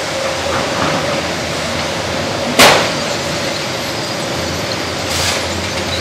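Steady running noise of a sawmill band headrig and carriage, with one loud bang about two and a half seconds in and a shorter, higher burst of noise near the end, as a log is handled onto the carriage.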